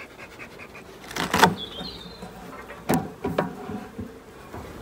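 Galvanised sheet-metal roof of a wooden beehive being handled and lifted off: a few short scrapes and clunks of metal against wood, about a second in and again around three seconds in.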